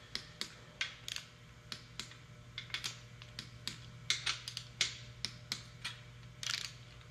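Ratchet wrench clicking in short irregular runs as it is swung back between pulls on bolts being tightened. A faint steady low hum lies underneath.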